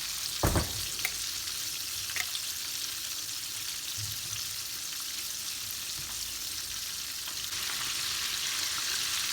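Flour-coated chicken drumsticks deep-frying in hot oil in a wok, a steady sizzle. There is a single knock about half a second in and a couple of light clicks soon after.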